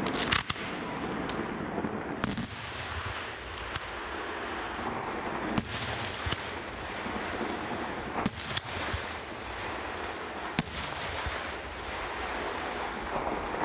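Aerial firework shells bursting: sharp bangs every two to three seconds over a steady background rumble.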